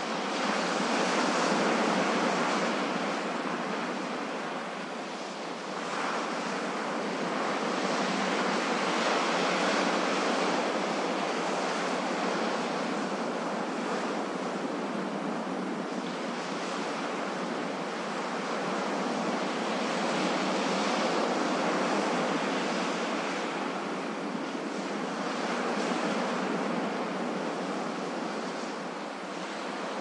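Ocean surf washing on a beach, a continuous rush of water that swells and eases every several seconds as waves break and draw back.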